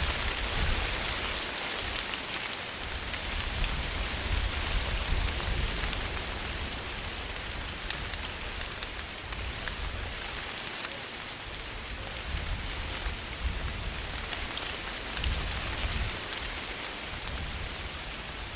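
Wind blowing through trees, the leaves rustling in a dense steady hiss that swells and eases, with gusts rumbling low underneath.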